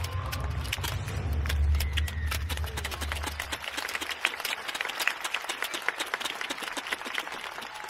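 Stadium crowd clapping, a dense patter of many hands that thickens in the second half. A low rumble underneath stops suddenly about three and a half seconds in.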